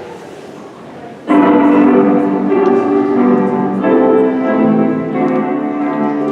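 Low room noise, then about a second in a keyboard starts playing held chords that change every second or so: the instrumental introduction to a school song.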